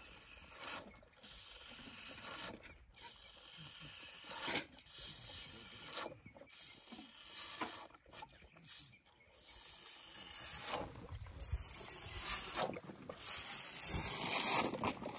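A young elephant sucking milk from a feeding bottle: irregular sucking and slurping in short bursts with hissing intakes of air, louder near the end.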